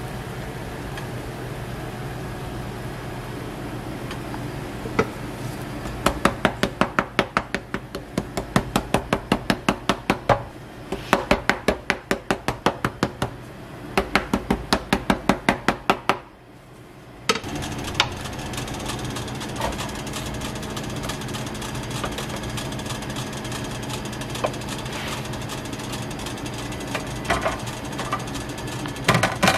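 Runs of quick wooden knocks, about five a second, from a wooden crepe spatula tapping against the griddle while it is slid under the cooked crepe to loosen it. A steady hum runs underneath. The knocking stops about two-thirds of the way through, leaving only the hum.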